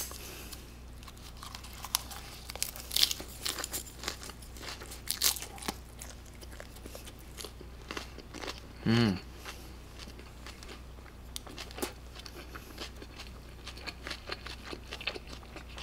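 Close-miked chewing of a lettuce wrap of grilled pork belly with raw garlic and chili pepper: many quick crisp crunches and wet mouth clicks. There is a short hummed 'mm' about nine seconds in.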